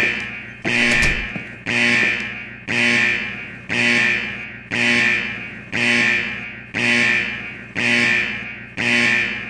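Fire alarm sounding: a loud tone repeats about once a second, each one starting sharply and fading before the next.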